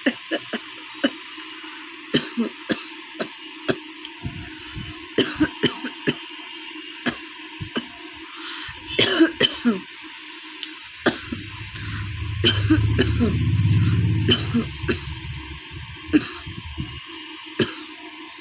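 A woman coughing again and again in short, sharp coughs, with some throat clearing: a real cough from a head cold. A low rumble runs for a few seconds past the middle.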